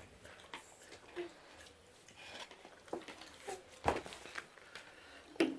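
Scattered light clinks and knocks of dishes and cutlery being handled, with a sharper knock about four seconds in and another near the end.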